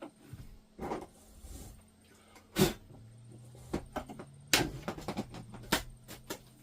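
Scattered sharp clicks and knocks of hand work at the install opening, the loudest about two and a half and four and a half seconds in, with a low steady hum coming in about three seconds in.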